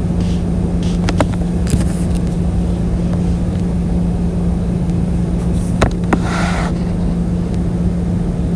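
Steady low electrical-sounding hum over a rumbling background noise, with a few faint clicks and two brief rustles.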